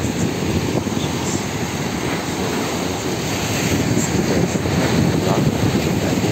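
Sea surf breaking and washing up the shore, mixed with strong wind buffeting the microphone as a steady low rumble.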